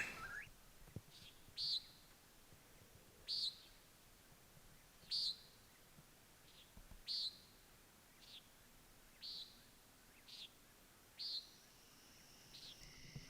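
Eastern whip-poor-will singing its repeated night call, one phrase about every two seconds, each with a soft lead-in before the loud ending note.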